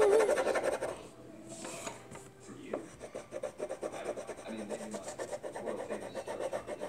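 A child's voice briefly at the start, then fast, continuous back-and-forth scribbling of a colouring pen on paper as an area is coloured in silver.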